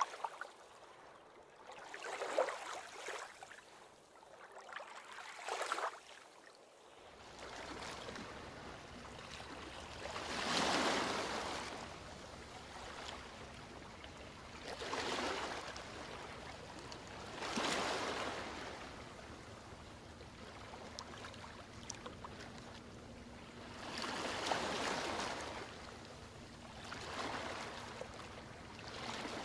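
Ocean waves washing onto a beach, each wave a swelling hiss that rises and falls away, about every two to five seconds.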